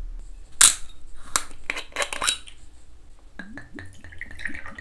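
Metal screw cap cracked open and twisted off a glass soju bottle: a sharp crack, then a quick run of clicks. About three seconds in, soju glugs from the bottle into a shot glass in quick pulses that rise in pitch.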